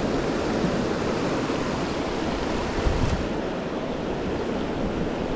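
Shallow mountain trout stream rushing over rocks and boulders in rapids: a steady wash of moving water. A brief low thump about halfway through.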